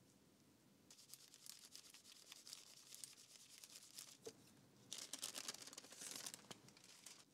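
Thin Japanese repair paper being torn by hand: faint, crackly fibrous tearing in two stretches, one of a few seconds starting about a second in and a second one near the end.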